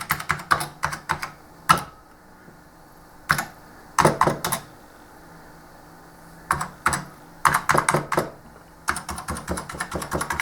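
Keys of an Amiga A500 keyboard being pressed one after another in quick runs of clicks, with a couple of pauses of a second or two, as each key is tested to see that it registers.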